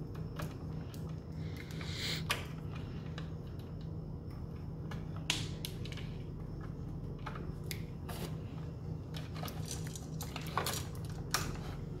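Pliers clicking and scraping on copper wires as the wires are twisted together and worked into place: scattered small metal clicks, a couple of them louder, over a steady low hum.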